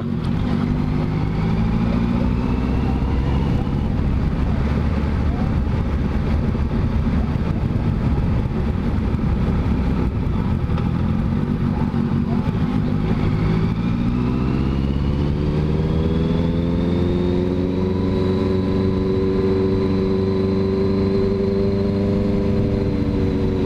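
Honda CBR650F's inline-four engine under way at town speed. It rises in pitch briefly about a second in, then climbs for several seconds from just past halfway as the bike accelerates, before settling into a steady run.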